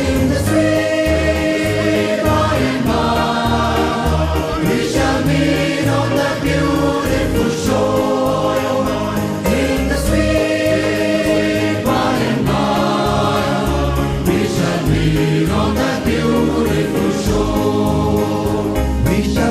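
A choir singing a gospel hymn with accompaniment, sustained chords moving every second or two over a steady bass line.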